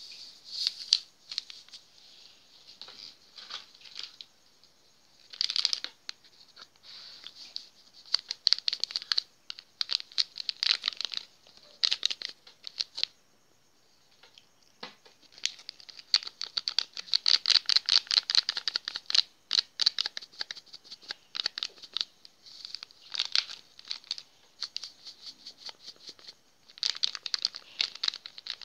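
Dry granules rubbed between fingertips and sprinkled onto a mound of flour: fine, rapid crackling in bursts, stopping briefly about halfway through.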